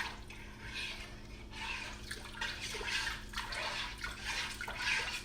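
Watery sauce sloshing and splashing in a cooking pot in a run of irregular bursts, as from stirring a liquid.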